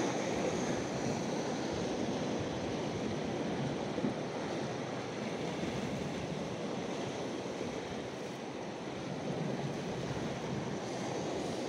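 Steady wash of sea surf, with wind on the microphone.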